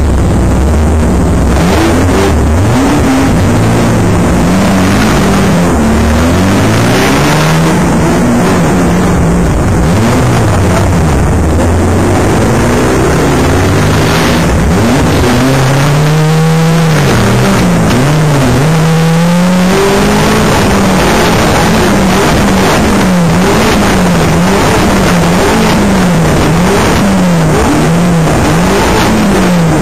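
Banger racing car's engine heard from inside the car, running loud and revving hard, its pitch rising and falling over and over. It swings up and down more quickly near the end.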